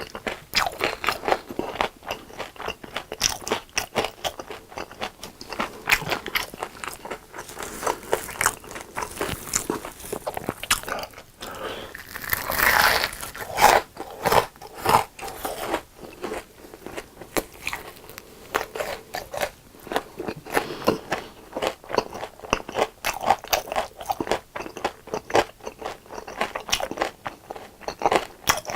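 Crunchy breaded fried food being bitten and chewed, with a rapid, irregular run of crisp crunches that keeps going the whole time.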